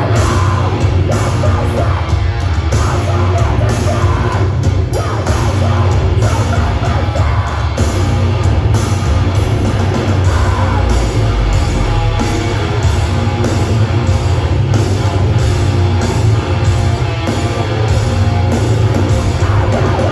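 A live heavy rock band playing loudly, with distorted guitars, pounding drums and yelled vocals.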